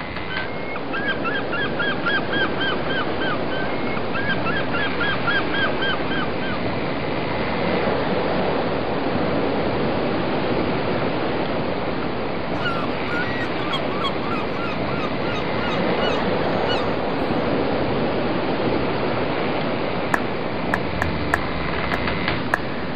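Steady rush of wind and water from a boat under way along a rocky coast. Over it come two quick runs of short honking calls, about five a second, early on, a fainter run in the middle, and a few sharp clicks near the end.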